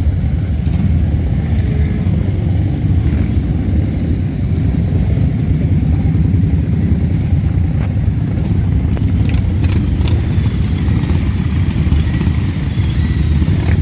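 Steady low rumble of a motor vehicle, most likely a motorcycle engine, running without a break.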